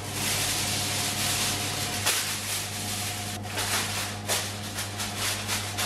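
Aluminium foil being pulled off the roll and then crinkled and pressed down over a steel roasting tray: a dense rustle at first, turning into many sharp crinkles from about halfway.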